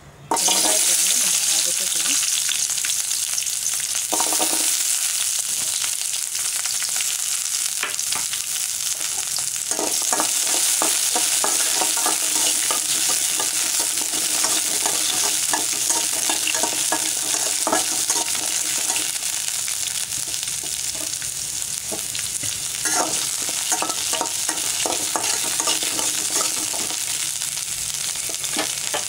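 Whole peeled shallots (sambar onions) sizzling in a little hot oil in a metal kadai. The sizzle starts suddenly about half a second in, when the onions go into the oil, and holds steady, with a spatula scraping and stirring them now and then.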